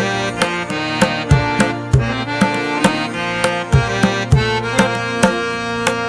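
Indian-style instrumental music: tabla strokes, some with a low bending bass note, over a held reedy melody line.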